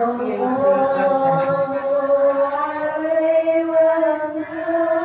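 A group of voices chanting an Islamic devotional song in unison, drawing out long held notes; the pitch steps up slightly about three seconds in.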